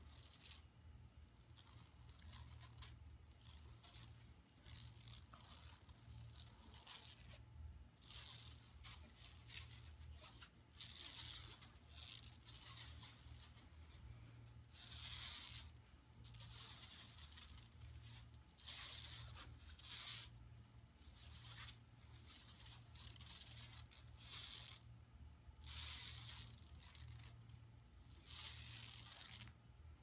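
Long fingernails scratching a shopping bag in repeated strokes, each lasting about half a second to a second and a half, with short pauses between.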